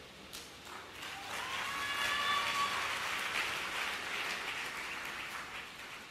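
Church congregation applauding, building up about a second in and tailing off near the end. A held voice rises over the clapping around two seconds in.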